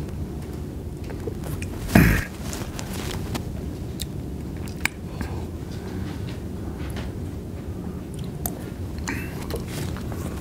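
Paper wrappers and napkins being handled and crinkled at a table, giving scattered clicks and crackles over a steady low room rumble; one short loud burst about two seconds in stands out above the rest.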